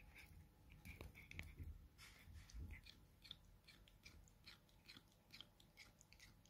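A cat gnawing on a wooden catnip stick: faint, irregular crunching clicks as its teeth bite into the stick.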